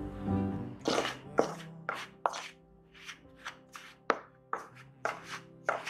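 A spoon stirring tapioca starch into mashed sweet potato in a mixing bowl: about a dozen sharp, irregular scrapes and knocks of the spoon against the bowl, roughly two a second.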